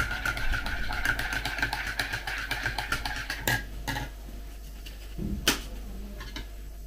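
Metal spoon stirring quickly in a ceramic mug, a fast run of clinks against the side with a faint ringing, which stops about halfway through. A couple of single sharp clacks follow, one around five and a half seconds in.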